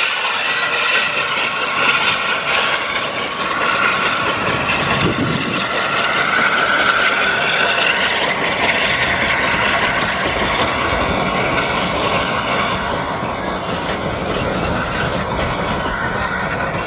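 Steam-hauled passenger train behind LNER Peppercorn A1 Pacific 60163 Tornado running past, its wheels clattering on the rails in a steady, loud rumble.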